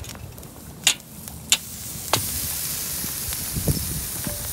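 Open wood fire crackling, with a few sharp pops in the first two seconds, then a steady high hiss from the fire and embers under the grill.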